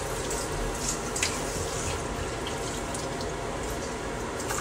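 A metal spoon scraping and tapping lightly as cheese filling is spooned onto dough, a few soft clicks over a steady rushing hiss.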